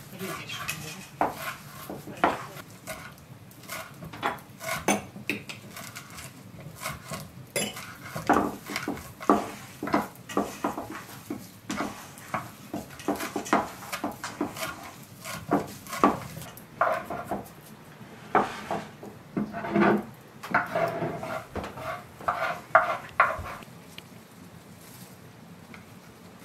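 Kitchen work sounds: hands mixing a grated onion and walnut filling in a metal bowl, then a knife chopping fresh herbs on a wooden cutting board in a run of irregular knocks that stops shortly before the end.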